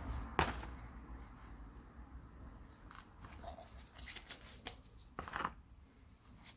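Handling noises from gloved hands and a microfibre cloth on cardboard: a sharp rustle about half a second in, then scattered short scrapes and clicks, the loudest cluster near the end.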